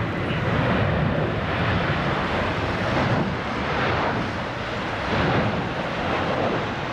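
Jet engines of a Boeing 737-800 on final approach, gear down: a steady rushing noise that swells and fades every second or so.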